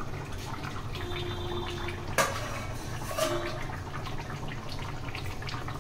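Steel plate lid lifted off a kadai of curry simmering on the stove, with a sharp metal clink about two seconds in. Liquid bubbling and a steady low hum sit underneath.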